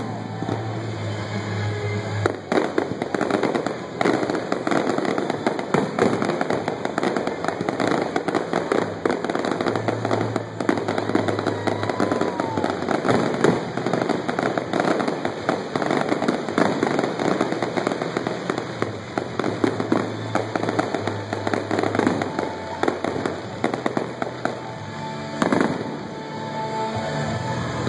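Fireworks display: a dense, continuous run of bangs and crackling from aerial shells going off in quick succession, with music playing underneath.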